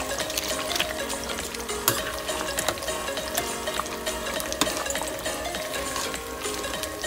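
A metal spoon stirring fried tortilla chips through hot red chile salsa in a stainless steel pot, for chilaquiles: a steady sizzle with frequent light clicks and scrapes of spoon and chips against the pot.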